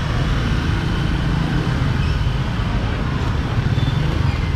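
Steady street traffic noise, a continuous low rumble of passing motor vehicles.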